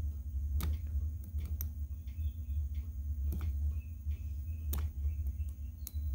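A few sharp clicks and ticks of a precision hobby knife working at the wires on an aviation connector's solder cups, over a steady low hum.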